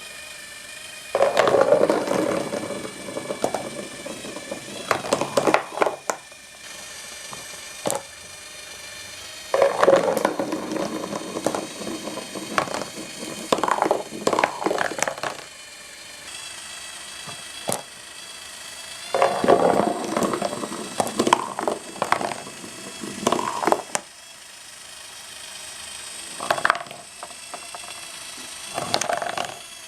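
Cardboard marble run machine running: a small electric motor hums steadily under a rotating cardboard disc, while glass marbles rattle and clatter along the cardboard tracks in three spells of several seconds each, about nine seconds apart, with single clicks between.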